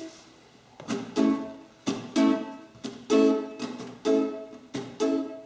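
Strummed string instrument, likely ukulele, playing a rhythmic chord intro, beginning about a second in with evenly spaced strokes.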